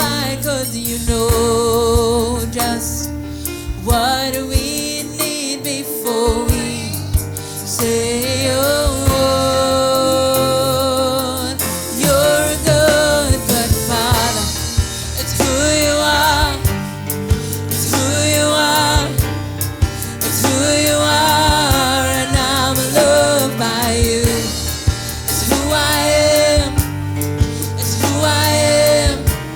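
Gospel worship song: a singer holds sung lines with vibrato over a band accompaniment with a steady bass and percussion.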